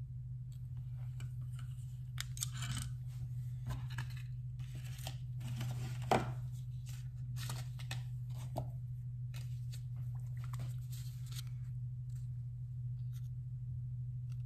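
KME knife sharpener being handled: irregular clicks, knocks and scrapes of its metal clamp and parts as the knife clamp is adjusted and turned over. The loudest is a single sharp knock about six seconds in. A steady low hum runs underneath.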